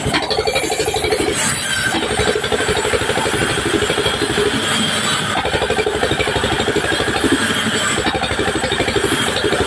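Sawmill band saw running steadily as its blade cuts lengthwise through a large wooden beam, a loud, even mechanical drone with a fast regular pulse.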